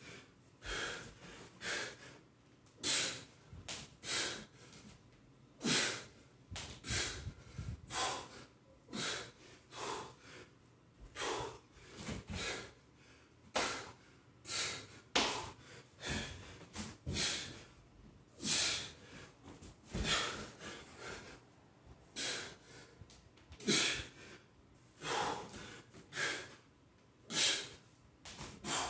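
A man breathing hard from the exertion of kettlebell exercises, in short forceful exhalations roughly once a second.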